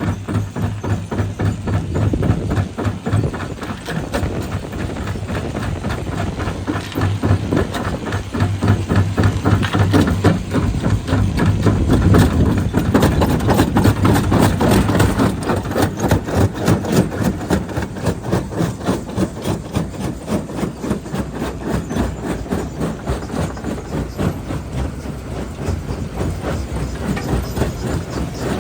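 Jaw crusher running and breaking stone: a steady low machine drone with a rhythmic pulsing clatter of rock being crushed between the jaws, loudest in the middle.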